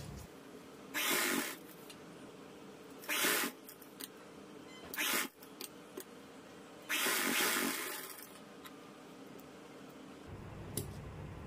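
Cotton fabric rustling in four short bursts as a kurti's neck piece is handled and turned at the sewing machine, with a few faint clicks near the end; the machine itself is not running.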